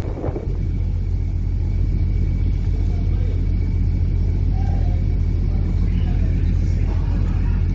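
The Diagoras car ferry's engines running with a steady deep rumble, a thin high whine held over it, during departure from port. A brief knock sounds right at the start.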